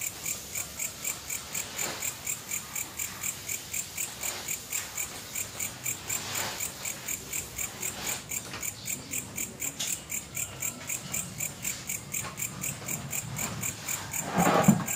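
An animal calling in a steady, high-pitched pulse, about three to four pulses a second, typical of a cricket. Faint rustles and knocks come from handling plant pots and soil, with a louder clatter near the end.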